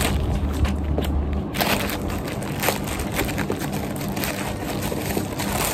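Thin plastic courier mailer bag crinkling and crackling as it is handled and torn open by hand, in many irregular small crackles.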